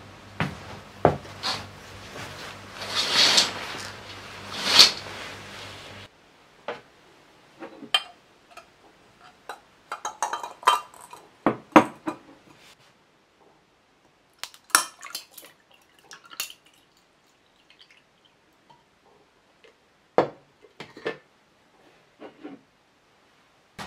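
A glass mug and ice being handled on a table: scattered sharp clinks and taps, some in quick clusters, as iced coffee is made over a large ice cube. The first six seconds hold a low hum with two swells of soft noise.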